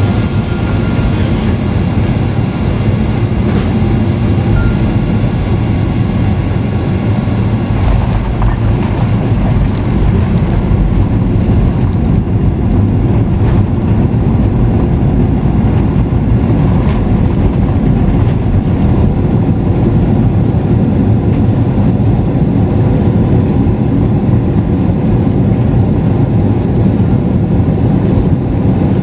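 Steady, loud rumble inside the cabin of a Boeing 737 rolling along the ground after landing, from its engines and its wheels on the pavement.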